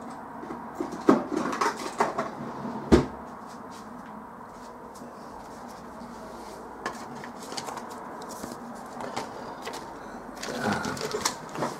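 Rummaging on a workbench: a few knocks and clatters of objects being moved in the first three seconds, the sharpest about three seconds in, then quieter handling with a few small clicks and a rustle near the end.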